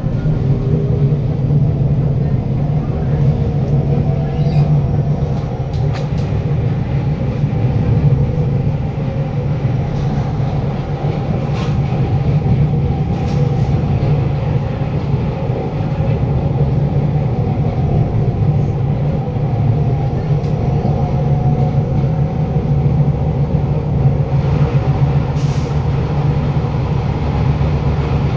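Kawasaki–CRRC Sifang C151C metro car running at speed with a loud, steady rumble: its flat-spotted wheels pound the rails, and the wheels make extra noise on top of the usual flat-wheel sound.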